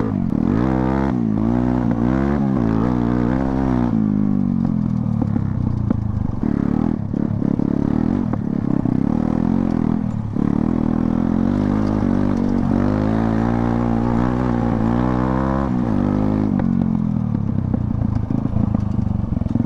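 Modified TVS Apache RTR 160's single-cylinder four-stroke engine being ridden off-road, its revs rising and falling over and over as the throttle is opened and closed. The revs surge repeatedly at the start and again past the middle, then settle lower near the end.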